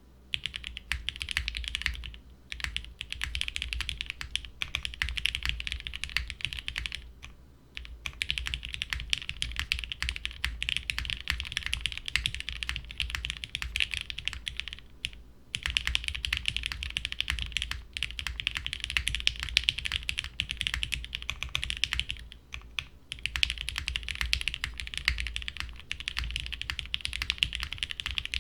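Typing on a plateless, gasket-mounted 60% mechanical keyboard with unlubed Cherry MX Black linear switches and GMK keycaps. Fast, steady keystrokes come in runs of several seconds, broken by brief pauses about 2, 7, 15 and 23 seconds in.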